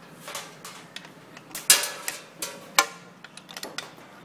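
Small metal screws and parts clicking and scraping against a metal machine panel as they are handled and fitted by hand: irregular ticks with a few short scrapes, two sharper clicks the loudest.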